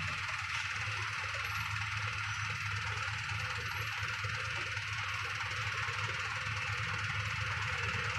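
Vehicle engines idling in a stopped traffic queue: a steady, even low engine hum.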